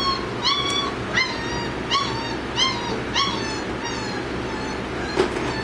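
Great Dane puppies whimpering: a run of short, high-pitched whimpers that rise then drop, about one every half second, fading after about three seconds. A sharp knock about five seconds in.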